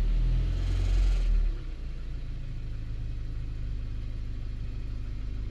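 2014 Mazda 3's four-cylinder engine running at idle, louder for about the first second and a half and then steady, after its startup misfire has gone away.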